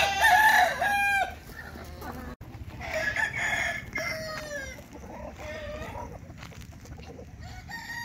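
Roosters crowing among a flock of free-range native chickens, with hens clucking. One loud crow opens, a second comes about three seconds in, and softer clucks and calls follow.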